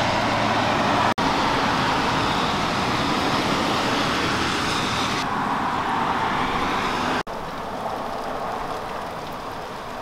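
Steady hiss of rain falling. It drops out for an instant about a second in and again about seven seconds in, and is a little quieter after the second break.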